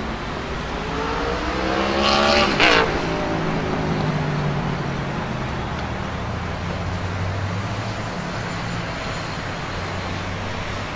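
A motor vehicle's engine passing by: its note climbs for about a second and a half, peaks with a sharp crack, then drops away and fades. A steady low rumble continues underneath.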